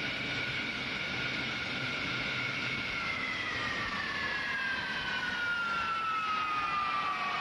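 Jet engine whine over a rushing hiss: two steady whistling tones that begin falling in pitch about three seconds in and keep gliding down, as a turbine does when it spools down.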